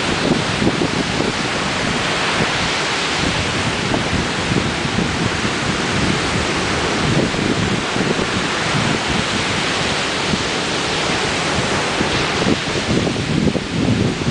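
Ocean surf washing continuously onto the shore, with wind buffeting the microphone in low rumbling gusts that swell about halfway through and again near the end.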